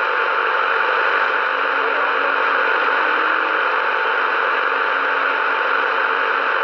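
CB radio receiver hissing static between transmissions: a steady rush of noise with faint steady whistle tones in it, a low tone joining about a second and a half in.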